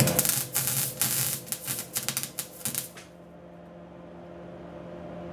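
Wire-feed (MIG) welder arc crackling and spitting in short, irregular bursts for about three seconds, then stopping. A steady low hum runs underneath.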